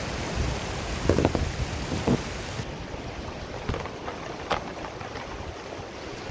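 Small mountain river rushing over boulders in shallow rapids, a steady hiss of white water. A few short sharp sounds sit on top, the loudest about a second in.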